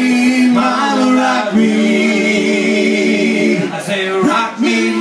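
Live band playing, led by a saxophone holding long notes that slide down at their ends, over keyboard and drums.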